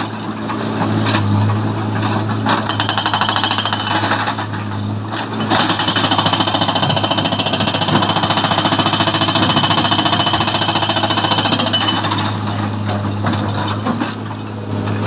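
Hydraulic rock breaker on a Tata Hitachi excavator hammering rock in rapid, evenly repeating blows, in short spells at first and then without a break from about five to twelve seconds in. A steady engine hum runs underneath.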